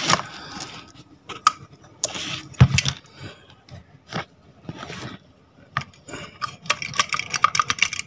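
Metal parts of a vacuum cleaner motor being handled on a workbench: irregular clicks, knocks and scrapes of the sheet-metal fan housing and impeller, with a quicker run of small clicks near the end.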